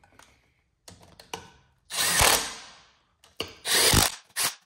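Power tool run in two short bursts of about a second each, driving down the flywheel housing bolts, followed by a few quick clicks near the end.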